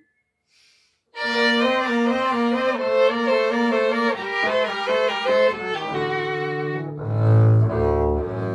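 Violin and double bass duet. After about a second of silence the violin begins a bowed melody that steps up and down note by note over the double bass, whose low notes grow louder from about six seconds in.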